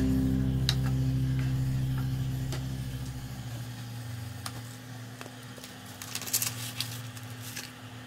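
Acoustic guitar background music ringing out and fading away over the first few seconds. Then a few faint light clicks and taps of kitchen utensils against a stainless steel saucepan, a cluster of them near the end.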